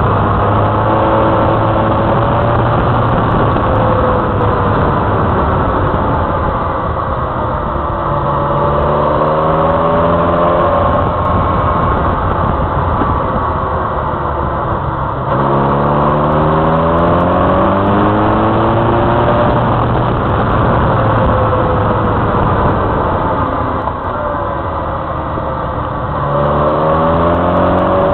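Motorcycle engine running under load, its pitch climbing several times as the bike accelerates out of bends and up through the revs, over a steady rush of wind and road noise.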